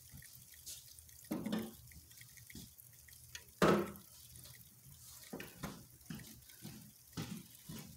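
Hamburger patties cooking in a frying pan: quiet sizzling broken by irregular pops and spatters, the loudest a little before halfway, over a faint low steady hum.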